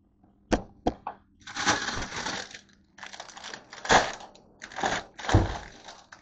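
A few sharp knocks, then the loud crinkling and rustling of a plastic produce bag of green grapes being pulled about and opened, in several bursts.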